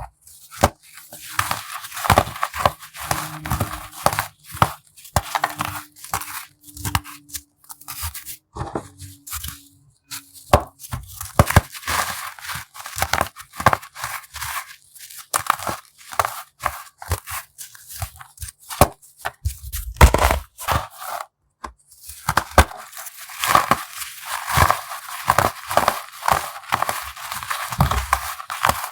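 Brittle chunks of baked baking soda being crushed, a dense run of crisp crunching and crackling with a short pause about three-quarters of the way through.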